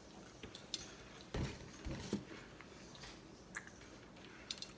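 Close-up eating sounds from a birria egg roll mukbang: scattered small mouth clicks and light clinks of cutlery and dishes, with a soft low thump about a second and a half in and another half a second later.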